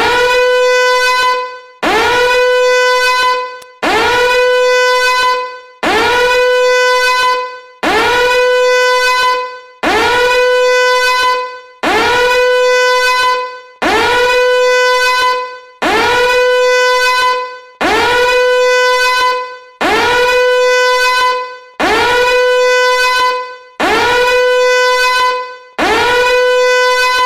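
Danger alarm sound effect: a loud, buzzy horn-like tone that scoops up in pitch and then holds. It repeats about once every two seconds, each blast lasting about a second and a half before fading.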